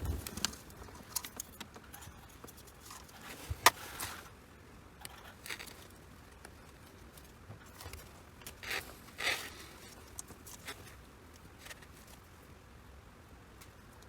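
Faint handling noises from hands working with wiring and heat-shrink tubing: light rustling and scattered small clicks, with one sharp click about four seconds in and a brief cluster of rustles about nine seconds in.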